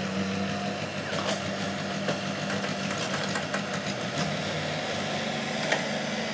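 Diesel engine of a compact JCB excavator running steadily, with a few short light knocks.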